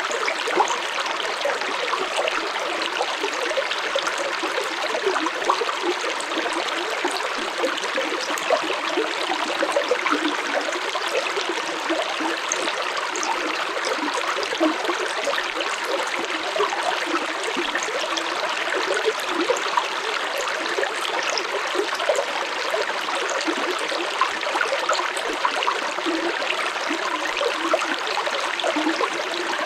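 Stream water flowing steadily over rocks, a continuous rushing babble with many small splashes and gurgles.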